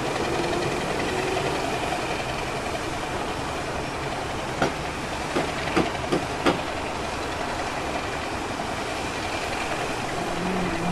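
Diesel locomotive engine running steadily while it slowly shunts. About halfway through there is a quick run of five sharp clicks.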